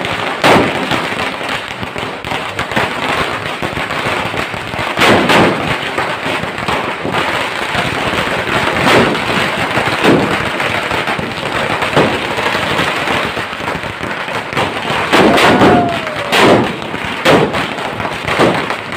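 Firecrackers going off in a street: a continuous dense crackling, with about ten louder, sharp bangs at irregular intervals that come closer together near the end.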